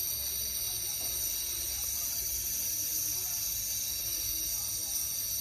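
Nebulizer running, giving off a steady hiss of mist over a low motor hum while a baby with a cough and cold inhales the treatment.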